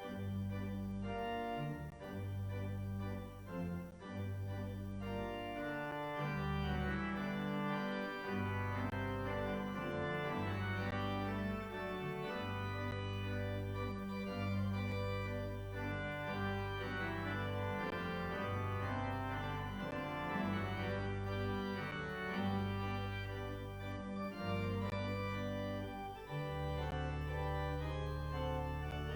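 Organ playing slow, sustained chords over long-held bass notes that change every second or two.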